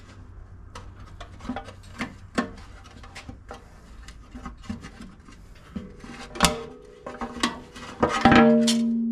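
Oil pan being worked loose from the bottom of a Chevrolet 8.1-litre V8: scraping and small metal knocks, then about eight seconds in a loud clang as the pan comes free, ringing on with a steady tone that slowly fades.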